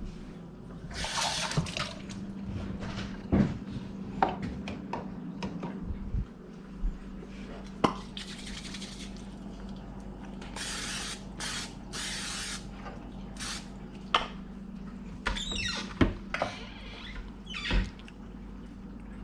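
Water from a kitchen tap running in short spurts, with knocks and clinks in between, over a steady low hum.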